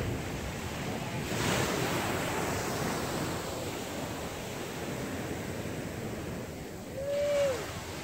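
Ocean surf: small waves breaking and washing in, with wind on the microphone, and a louder wash of surf about a second and a half in. Near the end comes one short call that rises slightly and then drops.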